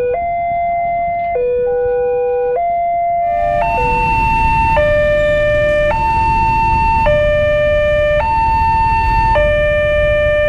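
Electronic two-tone warning alarm of a railroad level crossing, alternating high and low about every 1.2 seconds. About three and a half seconds in it switches to another crossing's alarm with a higher pair of tones, with road traffic noise underneath.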